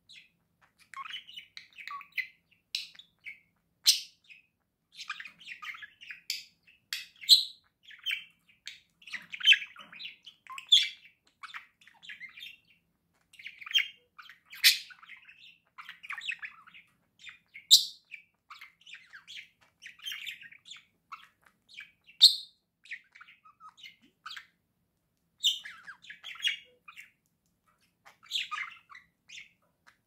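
Budgerigars chattering: a busy, irregular warble of soft chirps, with sharp, loud chirps and clicks scattered through it.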